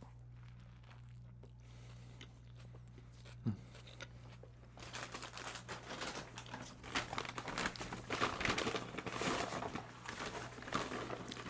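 Fast-food paper and plastic packaging crinkling and rustling as it is handled, starting about five seconds in as a dense run of small crackles that goes on to the end. A steady low electrical hum runs underneath.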